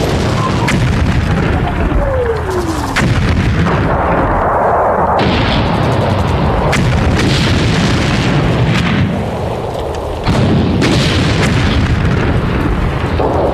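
Bombardment: falling whistles of incoming rounds near the start and about two seconds in, over a continuous rolling rumble of explosions with sharp cracks and blasts going off through it. The blasts ease briefly about ten seconds in, then come back.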